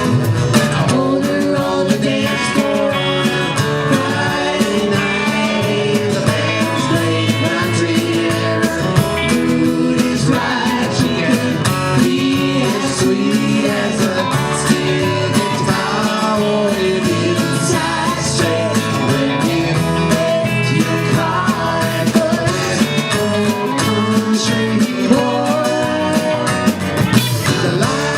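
Live country-rock band playing an instrumental break, with guitar to the fore over a steady bass and drum beat.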